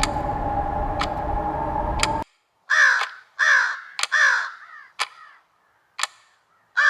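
A steady rumble with a held high tone stops abruptly about two seconds in. Then a bird gives harsh, falling calls: three in quick succession that trail off, and two more near the end. Sharp ticks sound about once a second throughout.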